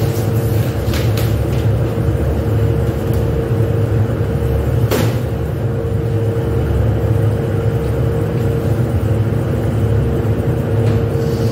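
Steady low rumble and hum of factory machinery, with one steady tone running through it. A few short clicks or knocks sound over it, the clearest about five seconds in.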